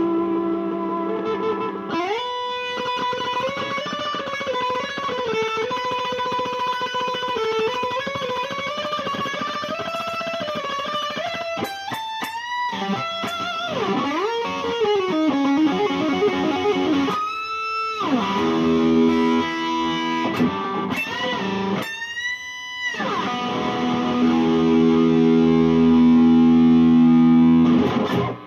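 IYV ILP 400 FR electric guitar played on its bridge pickup through a Peavey Bandit TransTube amp: sustained lead notes and held chords. Several notes swoop sharply down and back up in pitch, the dips of its Floyd Rose tremolo bar.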